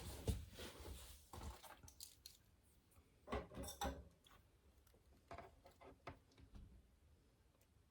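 Faint, irregular clicks and light taps of small hard parts being handled, loudest as a short cluster about three and a half seconds in.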